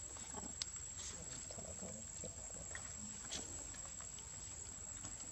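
Faint ambience of macaques feeding on fruit: a few soft clicks and faint low murmurs over a steady background hiss.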